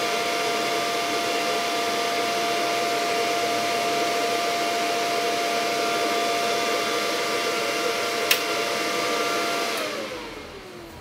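Kentaro MMA-160 inverter welding machine idling, its cooling fan whirring steadily with a high whine. There is a sharp click about eight seconds in, and near the end the whine slides down in pitch and fades as the machine is switched off and the fan winds down.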